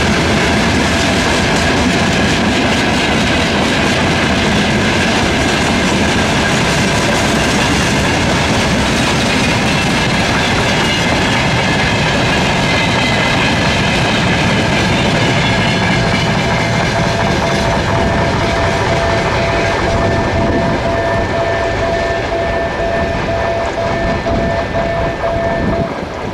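Freight wagons rolling over a level crossing: a steady rumble with the clickety-clack of wheels over the rail joints, fading as the last wagon passes near the end. Over it, the crossing's warning signal sounds a quick pulsing tone that cuts off just before the end.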